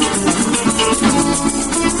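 Plucked string instruments playing a lively tune, with maracas shaking in a fast, steady rhythm.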